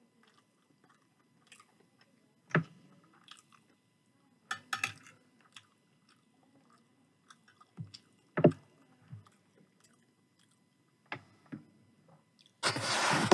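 Close-miked eating of chicken curry and rice: a metal spoon clinking against a ceramic plate and chewing, as a few sharp separate clicks over a quiet background. Near the end, a loud scraping rub as a hand grabs the camera and its microphone.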